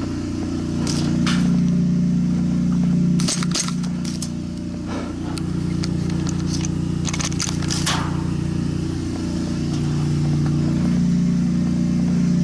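Airsoft pistols firing: sharp snaps, some single and some in quick strings of three or four, with a tight burst about three seconds in and another near eight seconds. A steady low hum runs underneath.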